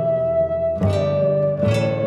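Background music: a held melody line over an accompaniment, with two accented chords, about a second in and again near the end.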